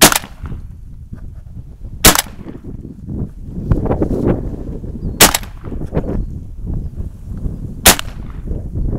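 Four shots from a Benelli M2 semi-automatic shotgun, each a sharp single blast, spaced two to three seconds apart. Wind rumbles on the microphone between them.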